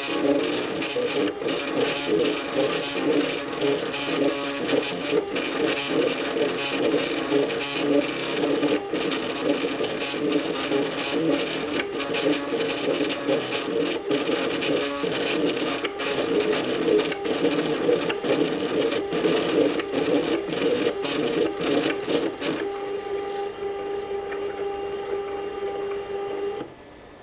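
Makerbot Cupcake CNC 3D printer's stepper motors whining through many short moves, with frequent brief pauses. About 23 s in it settles into a steady two-note hum, then stops near the end as the print finishes.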